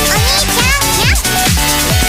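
Electronic dance music with a steady kick drum about twice a second, and gliding, sliding tones over it in the first half.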